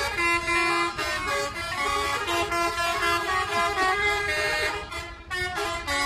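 Telolet horns of two buses: multi-tone air horns played together as a string of melodic horn notes that change pitch like a tune, with a brief break about five seconds in.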